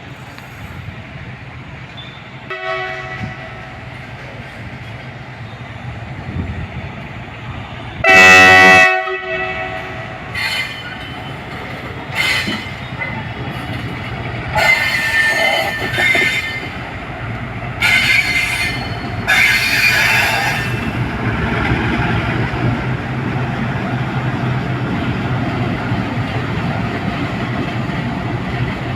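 WDG4G diesel locomotive sounding its horn: a short toot, then a very loud blast about eight seconds in, followed by a run of shorter and longer blasts. After that comes a steady rumble of the train running past, with wheel noise.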